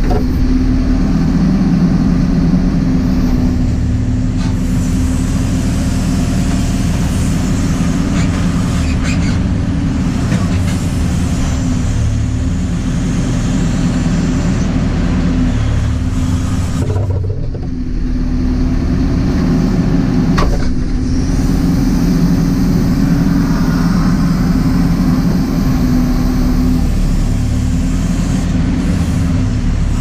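JCB 4CX backhoe loader's diesel engine running under hydraulic load as the backhoe arm digs and spreads soil. Its note swells and eases, dipping briefly about halfway through, with a few brief knocks.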